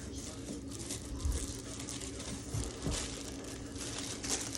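Rustling and crinkling of packaging, with a few soft knocks, as plastic silhouette goose decoys are handled and taken out of their box.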